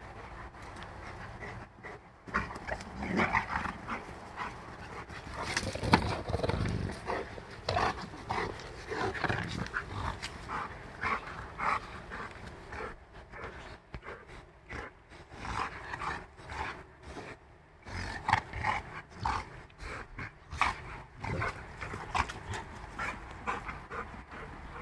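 Two Rottweilers, a puppy and an adult, playing rough: many short dog sounds in quick irregular bursts, loudest about six seconds in.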